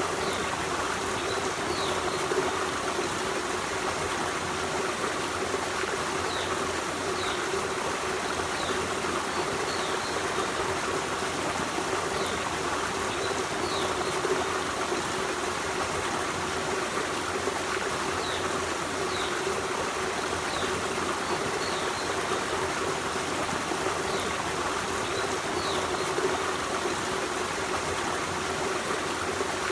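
Forest stream running steadily over rocks, an even rush of flowing water. Faint short high chirps recur every second or two above the water.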